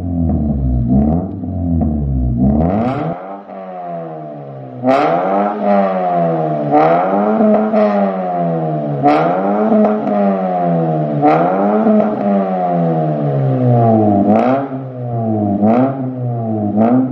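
Honda Brio's four-cylinder i-VTEC engine being revved through an NDK aftermarket full exhaust (downpipe, front pipe, straight resonator and Pro Street muffler). A few blips come first, then the revs drop back for a moment. From about five seconds in, a steady run of throttle blips follows, roughly one a second, each rising fast and sinking back.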